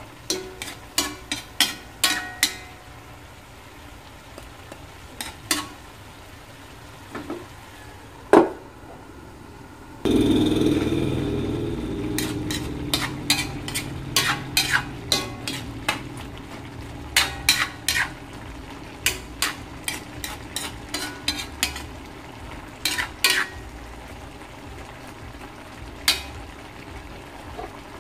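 Metal spatula stirring and scraping jackfruit in a stainless steel wok, with many sharp clicks against the pan. About ten seconds in, a sudden louder sizzling hiss starts as coconut milk goes into the hot wok, fading slowly while the stirring goes on.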